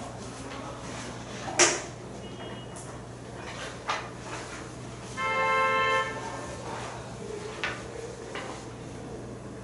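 Room with a steady low hum, a sharp click about a second and a half in and a softer knock near four seconds. About halfway through, a steady organ-like tone is held for just under a second.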